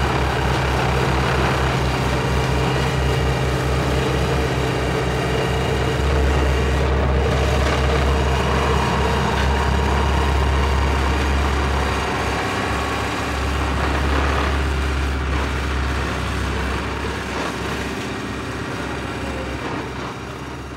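Four-wheel-drive vibrating roller's diesel engine running with a deep rumble. The rumble pulses rapidly for the first six seconds or so, then runs steadily, and gradually fades over the last several seconds.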